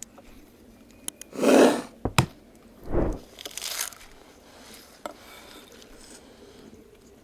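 A few brief handling sounds: a loud crunching or rustling burst about a second and a half in, a sharp click, a low thud, then a second, softer rustling burst.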